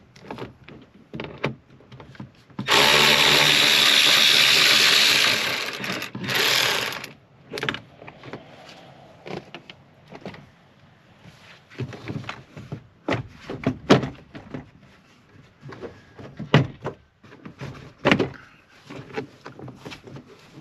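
A handheld power tool, such as a cordless drill or driver, runs for about three seconds and then again briefly. It is followed by scattered clicks and knocks as the door trim is worked on.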